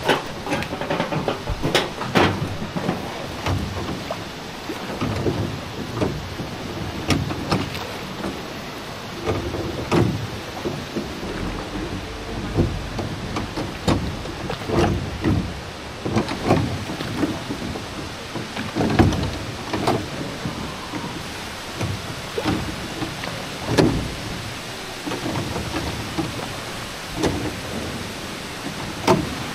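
Rental rowboat on the river: irregular hollow knocks and thumps of the oars and wooden boat, every second or two, over a steady rush of water.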